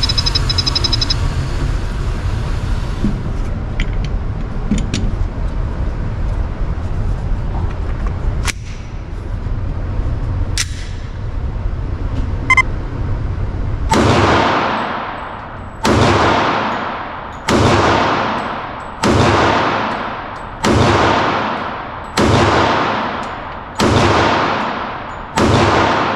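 A steady low rumble with a few faint clicks and one short beep, then, about halfway in, a Glock pistol fired eight times at a steady pace, a shot every second and a half or so. Each shot rings out and fades in the indoor range's echo.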